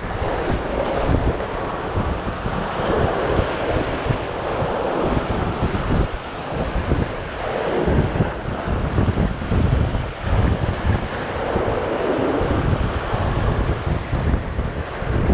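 Choppy sea waves washing and breaking against the rocks of a seawall, surging louder every few seconds, with strong wind buffeting the microphone.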